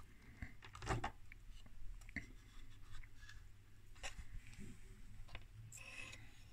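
Quiet handling noise: a few faint clicks and taps as fingers touch the wiring and strapped D-cell battery pack, the loudest about a second in, with a brief rustle near the end.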